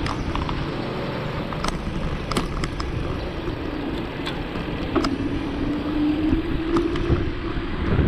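Wind rushing over the microphone while riding along a road, with a motor vehicle's engine note coming in about five seconds in and slowly rising in pitch.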